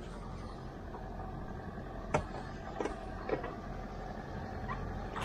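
Fishing boat's engine idling steadily with a low hum, with a few short sharp clicks between about two and three and a half seconds in.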